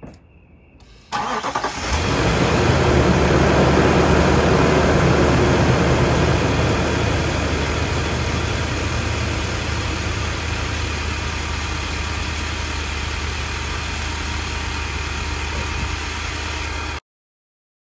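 The 5.6-litre V8 of a 2012 Infiniti QX56 is cranked briefly by its newly fitted starter, catches about a second in, and then idles steadily. The idle is loudest in the first few seconds and eases slightly after. The sound cuts off suddenly near the end.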